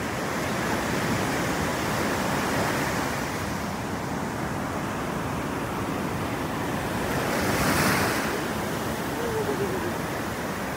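Ocean surf breaking and washing up the sand in a steady rush, with one louder wash swelling and fading about eight seconds in.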